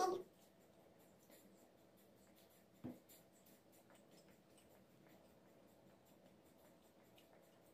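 Near silence: faint chewing and small mouth clicks of someone eating sushi. A brief vocal sound comes at the very start, and one soft knock about three seconds in.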